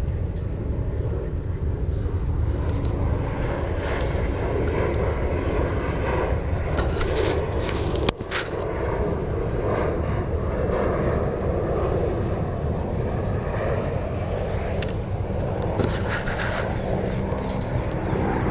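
Aircraft engine noise overhead: a loud, steady rumble with faint steady whining tones, broken briefly about eight seconds in.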